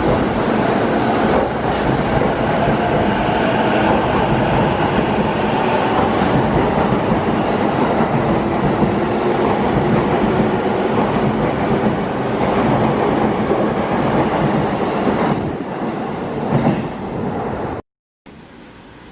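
Passenger train running, a loud steady rumble of wheels on rail that cuts off abruptly near the end.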